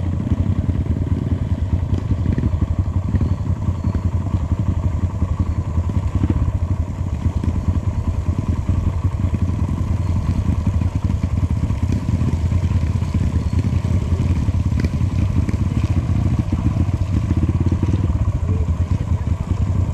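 Motorcycle engine running steadily with a dense, fluttering low rumble.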